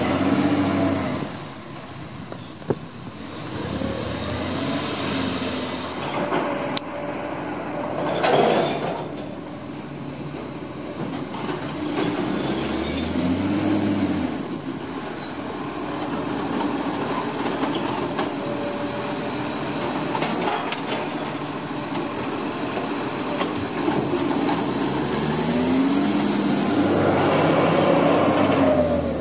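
Automated side-loader garbage truck's diesel engine rising and falling in pitch several times as the truck pulls off and slows between bins, with a short sharp air-brake hiss about eight seconds in. The engine is loudest near the end as the truck goes past close by.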